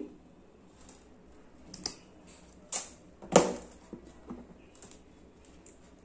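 A few separate sharp clicks and taps, the loudest a little past the middle: small metal jewellery tools and gold-tone chain being handled on a plastic work mat.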